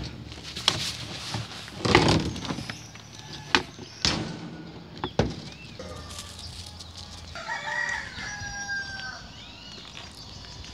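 Roosters fighting, with a rooster crowing once about seven and a half seconds in. Several sharp knocks come in the first half, the loudest about two seconds in.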